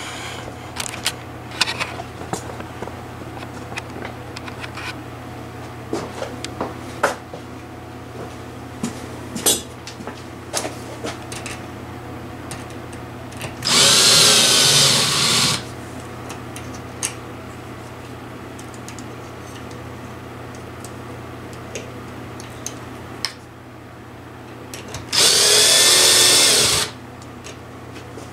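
A power drill-driver runs twice, each time for about two seconds, about halfway through and again near the end, driving screws to fasten a ceiling fan mounting bracket to the ceiling box. Between the runs come light clicks and knocks of screws and metal bracket being handled.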